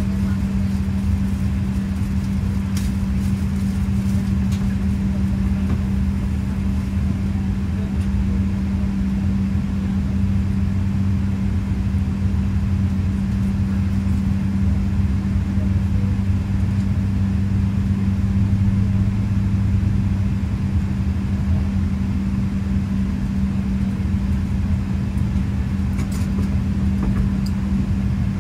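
Steady low drone inside a Boeing 777-200ER's passenger cabin during pushback, with a constant hum-like tone through it; the deeper part of the drone swells slightly midway, and a few faint clicks sound over it.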